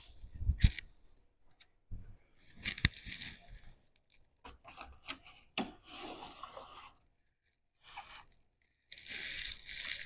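A potted plant being set on and shifted about a wall shelf: a few sharp knocks and scrapes, with rustling in between and near the end.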